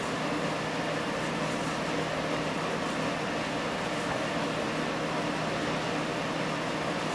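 Steady background noise, an even hiss-like rush with a faint low hum underneath, holding level throughout with no distinct events.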